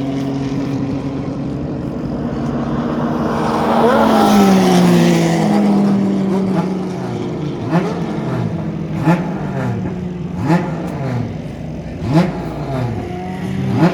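TC Zonal race car engines running: a steady engine note, a louder car passing about four seconds in with its pitch falling away, then short repeated revs roughly every second and a half over the steady running.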